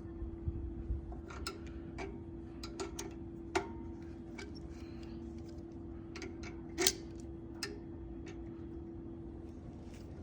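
Scattered small clicks and clinks of hand tools and metal carburetor parts being handled while the old carburetor is unscrewed from a go-kart engine, with two louder knocks about three and a half and seven seconds in. A faint steady hum runs underneath.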